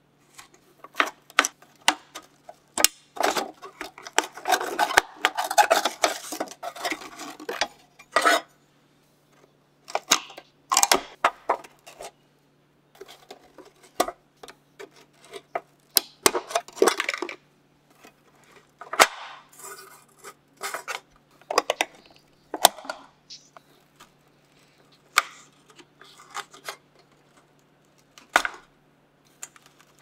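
A metal screwdriver and pick clicking, scraping and prying at the small screws, bushings and metal plates of an old wooden carpet sweeper during disassembly, with scattered sharp metal clinks and a longer stretch of scraping a few seconds in.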